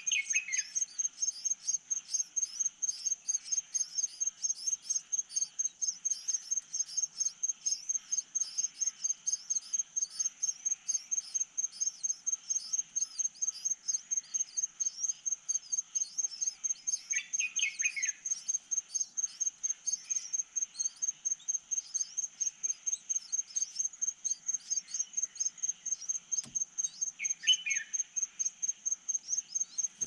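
An insect, cricket-like, chirping a high, even tone in steady pulses about four times a second, with three short bird calls: near the start, about two-thirds in and near the end.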